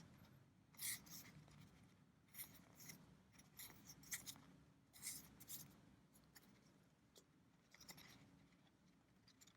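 Faint, scattered rustles and scrapes of a trading-card booster pack and its cards being handled, about eight short sounds spread over several seconds.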